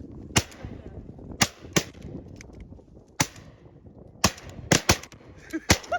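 A volley of shotgun shots from goose hunters firing at incoming snow geese: about eight sharp shots at uneven intervals, some close together in pairs.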